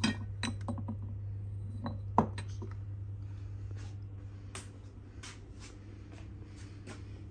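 Glass bottles clinking and knocking together as a hand moves among them on a countertop: a quick run of light clinks, the loudest a little after two seconds in, then a few fainter taps. A steady low hum runs underneath.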